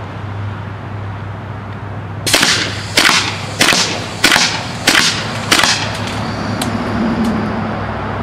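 A fully automatic paintball gun converted to fire AA batteries, shooting a burst of six sharp shots about two-thirds of a second apart, starting about two seconds in.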